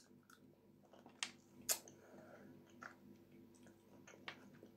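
Faint chewing of a sweet cherry, with a couple of sharp mouth clicks between one and two seconds in and softer ones later.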